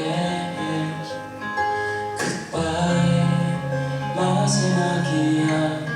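Live band music: a song carried by guitar and a voice, with a sharp hit about two seconds in.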